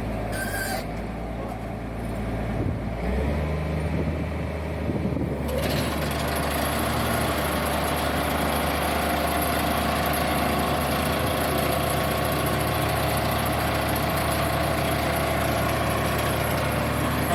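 Heavy diesel construction machinery running steadily. Its low hum steps up in pitch about three seconds in, and a louder hissing, rattling noise joins a couple of seconds later and holds steady.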